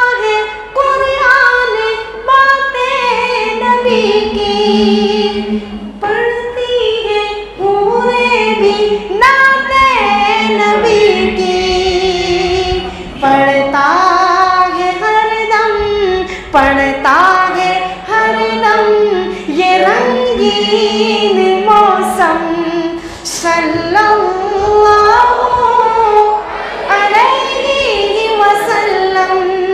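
A qari's solo unaccompanied voice chanting a devotional recitation in praise of the Prophet, in long, melismatic held notes with short pauses for breath.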